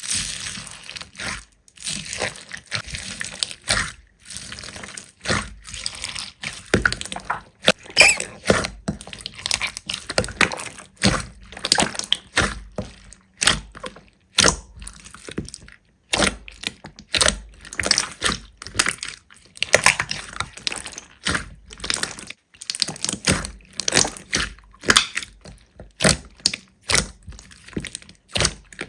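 Slime being squeezed, stretched and poked by hand, giving an irregular run of wet clicks, pops and crackles with short pauses between handfuls.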